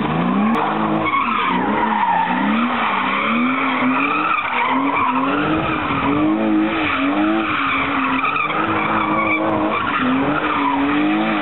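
Car doing burnout donuts: the engine note rises and falls about once a second as the driver works the throttle, over continuous squealing and scrubbing of spinning rear tyres.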